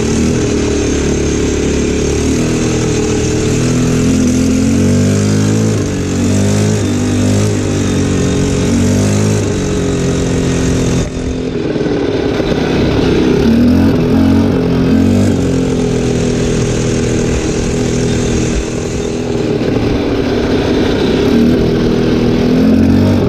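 ATV engine running while the quad is ridden along a gravel track, its pitch rising and falling as the throttle changes.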